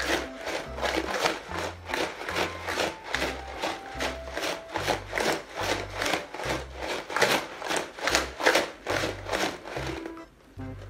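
Ice balls and coarse salt rattling inside a lidded plastic jar shaken by hand, about two to three shakes a second, to freeze a bag of ice cream mixture; the shaking stops near the end. Background music with a steady bass beat plays underneath.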